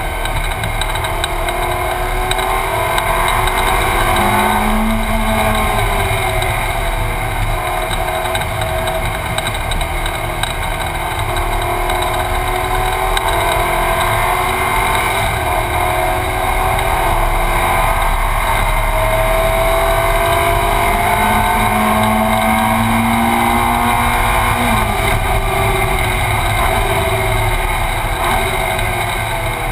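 Ferrari 458 Challenge's naturally aspirated 4.5-litre V8 heard from inside the cabin, running hard on track. Its pitch climbs and drops several times as it is driven through the gears, with sharp drops about five seconds in and near the end.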